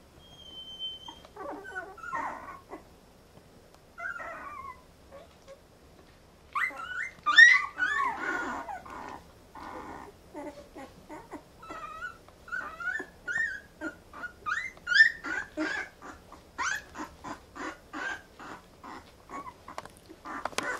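Newborn Brittany puppies whimpering and squeaking in short, high calls that slide up and down. The loudest cluster comes about seven seconds in, and a quick run of repeated squeaks follows near the end.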